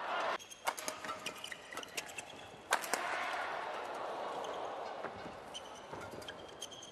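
Badminton rally: sharp racket strikes on the shuttlecock, the hardest about two and a half seconds in, and short shoe squeaks on the court mat, over the crowd noise of a large hall that swells after the hard strike.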